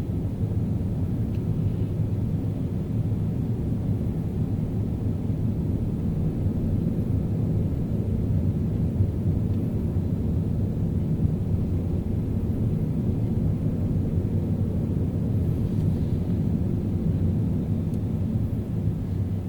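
Car driving at a steady pace through city streets: a continuous low rumble of engine and road noise with no sharp events.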